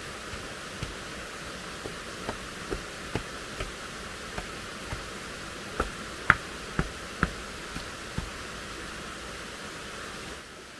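A wooden stick knocking into hard soil and stones at the foot of a pole, about fifteen sharp, irregular knocks. The loudest come in a quick run of four a little past the middle. A steady background hiss runs under them.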